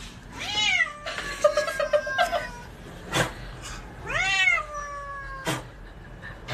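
Domestic cat meowing: two drawn-out meows that rise then fall in pitch, about three and a half seconds apart, with a wavering call between them and two sharp knocks.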